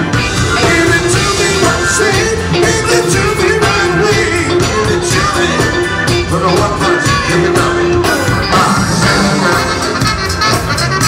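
Live funk and R&B band playing: drum kit, electric bass and guitar, congas and a horn section of saxophones and trumpets, with a steady beat.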